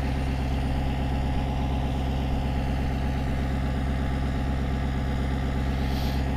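Ford Super Duty brush truck's engine idling, a steady, even low hum.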